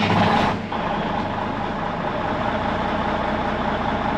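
1998 International roll-off truck's diesel engine just started: a louder burst in the first second, then settling into a steady idle.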